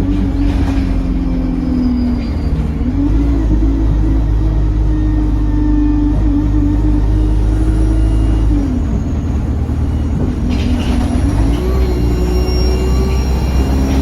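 Diesel bus engine heard from on board while the bus is under way. Its note falls and climbs with the gear changes, with a sharp drop about two-thirds of the way in. From about ten seconds in, a thin high whistle climbs slowly in pitch over the engine.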